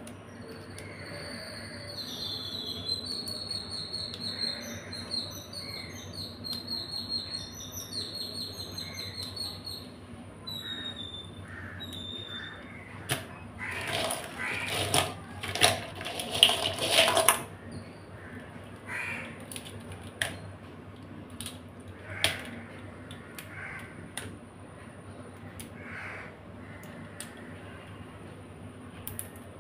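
Raw crabs being handled and cleaned by hand in a stainless-steel sink: scattered clicks and knocks of shell against bowl and steel, with a louder stretch of rough scraping and rubbing in the middle. A bird chirps repeatedly in the background through the first ten seconds.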